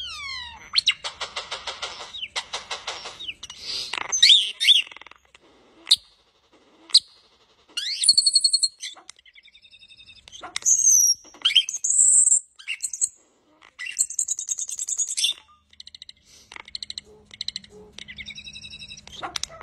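European starling singing a long, varied song of gliding whistles, fast clicking rattles and buzzy high notes, broken by short pauses.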